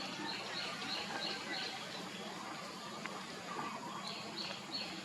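A bird calling in the background: runs of short, high chirps at about three a second, five in the first couple of seconds and three more near the end, over a steady outdoor murmur.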